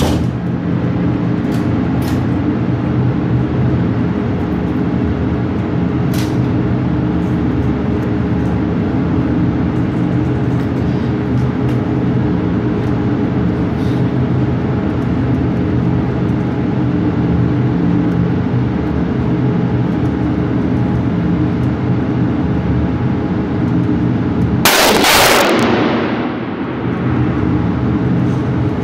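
Steady, loud mechanical drone of an indoor shooting range's air handling, with a few faint sharp cracks. About 25 seconds in there is one much louder gunshot with a short echoing tail.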